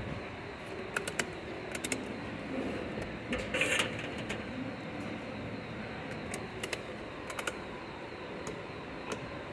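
Electric fan running with a steady rush of air, with scattered light clicks and taps over it.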